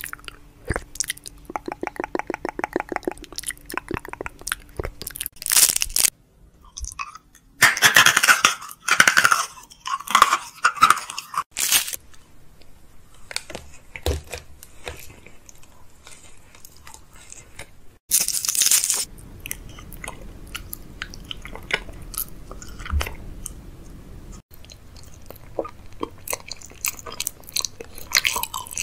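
Close-miked ASMR mouth sounds: crunchy bites and wet chewing and smacking right against the microphone. Runs of loud, crackly crunches come partway through, with a brief buzzing rattle about two seconds in.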